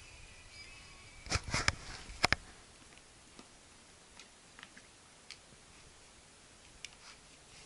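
Several sharp knocks close together, then faint scattered clicks and sniffs as a husky puppy noses and licks at the floor.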